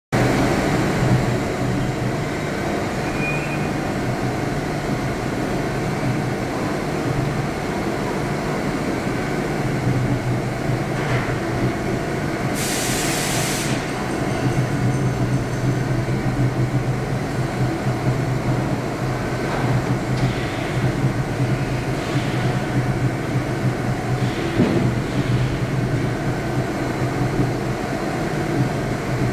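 DMG DMU60 monoBlock five-axis CNC machining centre milling a metal block: a steady machine hum with the spindle and cutting noise throughout, and one brief loud hiss about halfway through.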